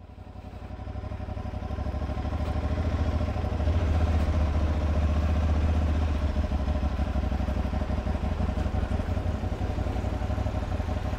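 Engine running steadily at low revs, a deep rumble with rapid even pulsing, fading in at the start.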